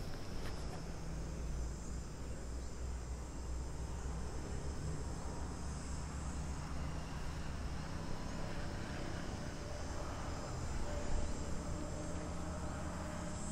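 Outdoor ambience of steady high insect chirring over a low, steady rumble.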